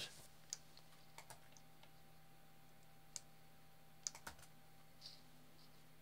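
Faint, scattered clicks of computer keys, about seven at irregular spacing, over a faint steady hum.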